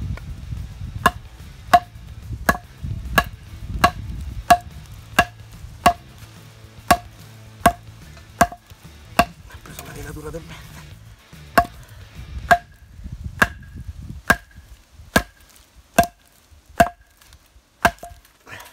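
Batoning: a wooden baton strikes the spine of a D2 steel bushcraft knife, driving the blade down into a chestnut log. Sharp knocks at a steady pace, a little faster than one a second, each with a short ring, with a brief pause about halfway through.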